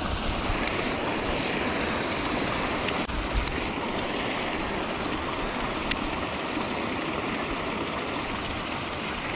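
Paddlewheel pond aerator churning the water: a steady rushing splash, with a few faint ticks around the middle.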